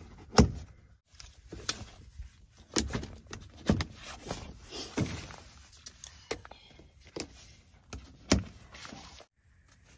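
A series of irregular knocks and thuds, about a dozen, loudest just after the start and again about eight seconds in, with a short rustle around the middle.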